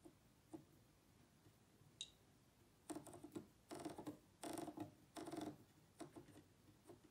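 Rotary control knob of a Gaggenau steam oven turned to scroll a setting, giving quiet detent clicks: a few single clicks, then quick runs of rapid clicking from about three to five and a half seconds in, and a few more clicks near the end. A short high beep sounds about two seconds in.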